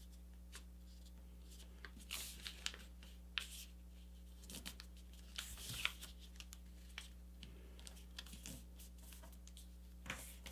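Faint scattered rustling and crinkling of a sheet of paper being folded and creased flat by hand.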